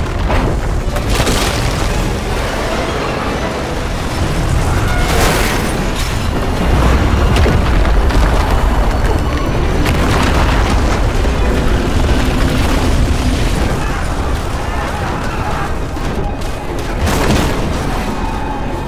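Film earthquake sound effects: a deep, continuous rumble broken by loud crashes about a second in, about five, ten and seventeen seconds in, with a film music score underneath.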